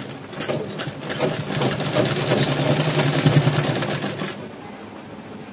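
Sewing machine running steadily, stitching a seam through gathered fabric. It starts just after the beginning and stops abruptly about four seconds in.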